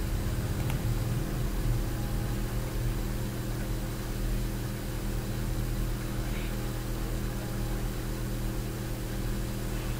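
Steady electrical hum with a layer of hiss, unchanging throughout; no music from the playback is heard.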